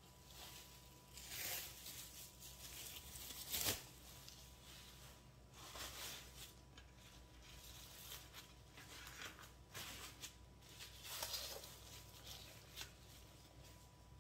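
Plastic cling wrap rustling and crinkling in irregular bursts as it is pulled off the roll, torn and stretched over a metal sheet pan, with one sharper, louder sound about four seconds in.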